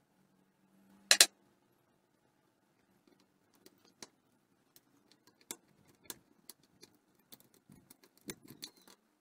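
Metal tools and small engine parts clinking and clicking as a Honda P50's four-stroke cylinder head is taken apart by hand. A sharp double clink comes about a second in, then scattered lighter clicks and taps.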